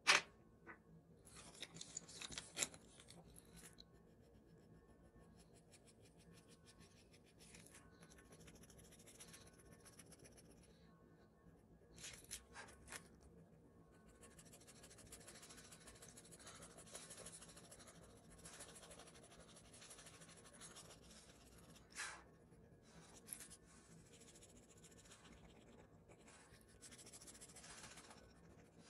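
Drawing tool scratching across toned paper in stretches of quick shading strokes, with a few faint clicks between them.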